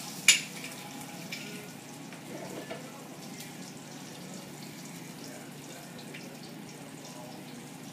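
Kitchen cooking noise: one sharp clack of cookware or a utensil about a third of a second in, then a few light clicks over a steady low hiss.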